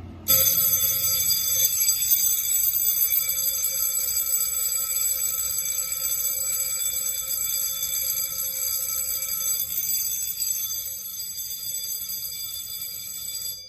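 Fire alarm bell ringing continuously for about 13 seconds, then cutting out near the end with the gong briefly ringing on. It is a test activation from the control panel that shows the bell works, although it is programmed as a supervisory on a different zone.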